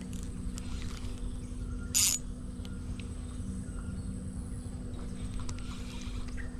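Low, fluctuating rumble of wind on the microphone under a steady low hum, with one short, sharp hissing buzz about two seconds in.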